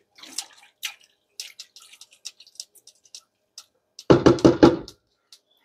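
A spoon stirring shrimp curry in a pot: soft wet stirring noises with light clicks. About four seconds in, a short burst of voice, louder than the stirring.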